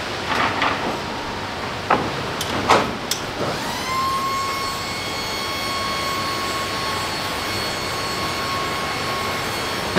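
Metal clanks and knocks as a loaded pallet is worked with a pallet jack at the back of a box truck. Then the electric motor of the truck's liftgate starts, rises briefly in pitch and runs as a steady whine while the gate carries the pallet.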